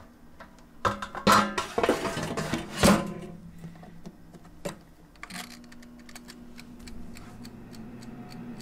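Air fryer being loaded and started: a series of knocks and clunks from the basket and housing, then the temperature and timer dials are clicked round and, about five seconds in, the fan starts with a steady low hum.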